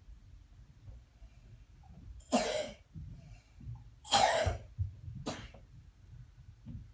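A person coughing: three harsh coughs, the first two strong and about two seconds apart, the third shorter and weaker a second later.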